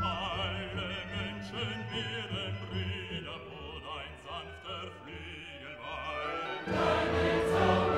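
Background music: a classical vocal piece with a singing voice in vibrato, becoming fuller and louder near the end.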